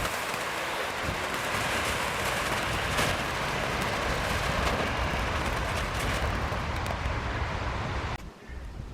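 Firework fountain spraying sparks with a steady, loud hiss and a few pops, cutting off suddenly near the end as it burns out.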